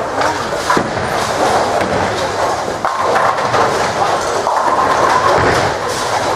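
Ten-pin bowling alley din: balls rolling down the wooden lanes with a steady rumble, a few sharp knocks of balls and pins, and people talking in the background.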